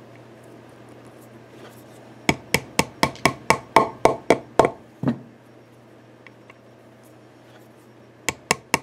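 Small metal fittings being tapped into drilled holes in a guitar body with a hammer. There is a quick run of about ten sharp taps, a pause, and then a few more taps near the end.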